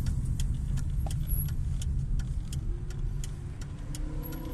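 Car driving, heard from inside the cabin: a steady low road and engine rumble, with light clicks ticking about two to three times a second.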